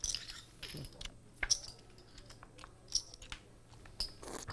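Quiet, scattered clicks and clacks of poker chips and cards being handled at the table.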